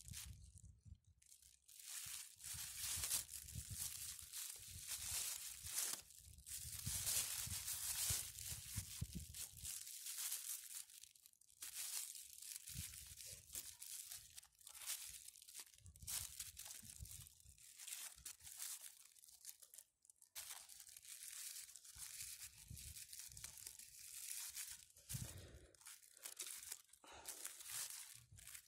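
Clear plastic refrigerator bag crinkling and rustling in irregular bursts as it is gathered around a branch and bound with string.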